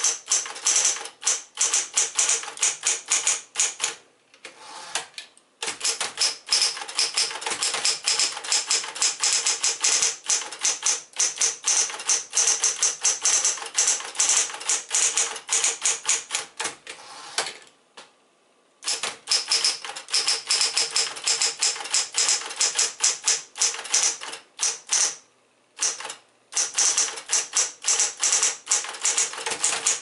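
A 1965 Smith-Corona Coronet electric portable typewriter being typed on: rapid runs of keystroke clacks, several a second, broken by a few short pauses.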